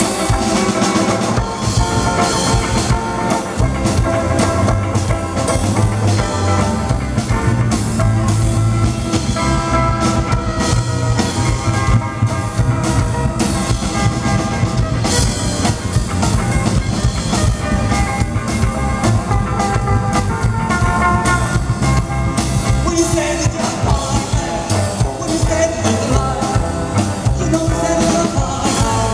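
Live rock-and-roll band playing: electric guitars and an acoustic guitar strumming over a walking upright double bass and a drum kit.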